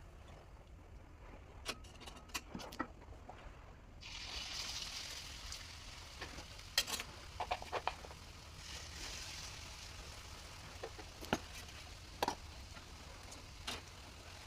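Bakwan fritters frying in hot oil: a sizzle that swells about four seconds in and again midway, with scattered clicks and taps of a utensil against the pan.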